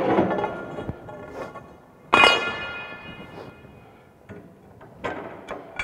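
A metal pipe being handled, scraping and rattling at first, then one sharp clang about two seconds in that rings on with a bell-like tone for about a second. A few light metallic clicks follow near the end as the pipe is set into a pipe vise.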